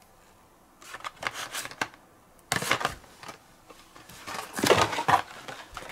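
Carded Hot Wheels cars being handled and pulled from their case: plastic blister packs and card backs rustling and scraping against each other in short bouts, the loudest about halfway through and another near the end.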